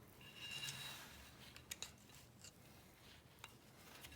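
Faint metallic handling noises of small engine parts during a small-block Chevy teardown: a short scrape with a light ring under a second in, then scattered small clicks and a sharper click near the end.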